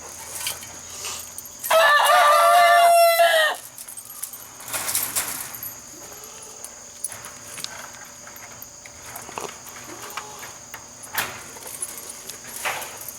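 An Australorp rooster crowing once, loudly, about two seconds in, the call lasting nearly two seconds. Faint clucks and small scattered sounds follow.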